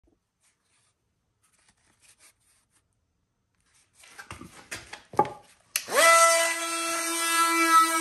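A few short clicks and knocks of the tool being handled, then about six seconds in a Milwaukee M12 Fuel cordless oscillating multi-tool with a triangular sanding pad starts: its brushless motor rises quickly in pitch to speed and then runs at a steady pitch.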